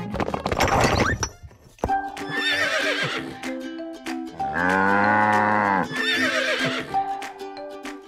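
Light background music with cartoon farm-animal calls: short horse whinnies, and one long, loud, low call about halfway through. A brief noisy rush comes first.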